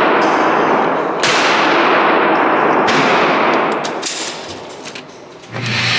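Gunshots echoing around a gun range: loud shots about a second and about three seconds in, each with a long ringing tail, with the tail of an earlier shot at the start. Music comes in near the end.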